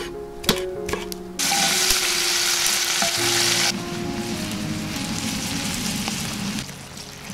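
A couple of knife chops on a wooden cutting board, then sliced onions, olives and capers sizzling in a pan. The sizzle starts loud about a second and a half in, eases after about two seconds and fades near the end, over soft background music.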